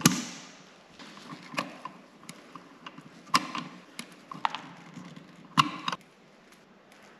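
Wire strippers snipping and stripping insulated copper wire: several sharp snips and clicks with pauses of about a second between them.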